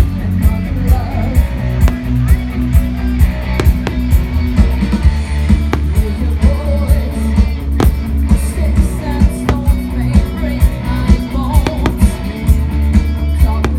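Loud rock music with guitar and a steady beat, with a few sharp bangs standing out here and there.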